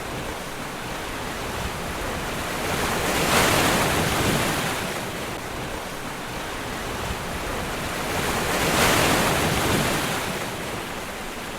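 Ocean surf with wind: a steady wash of waves that swells twice as waves roll in and break.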